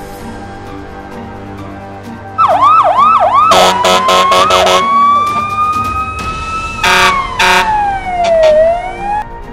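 Siren-like sound effect added over background music. It starts about two seconds in with four quick up-and-down wails, then pulsing horn-like blasts and a long, slowly rising tone, and ends with a glide that falls and then rises.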